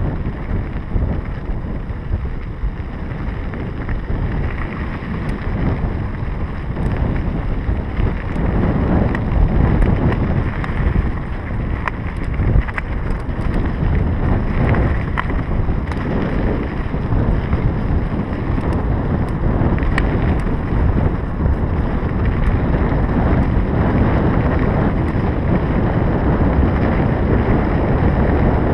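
Wind rushing over the camera microphone as a Scott Scale 970 mountain bike rolls along a dirt road, with the tyres crunching on loose gravel and scattered small clicks and rattles from the bike.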